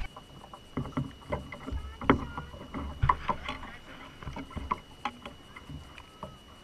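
Irregular knocks, taps and low thuds around an aluminum fishing boat, with a faint steady high whine underneath.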